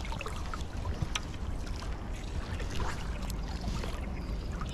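River water rushing and lapping, with wind buffeting the microphone and a few short clicks.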